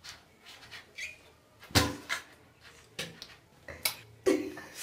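Scattered knocks and thumps, the loudest about two seconds in, with short bits of a voice in between.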